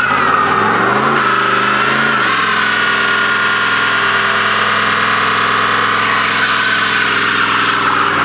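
Pontiac Firebird doing a burnout. The V8 engine blips up and down about a second in, then is held at high revs while the spinning rear tyres squeal in a steady high tone.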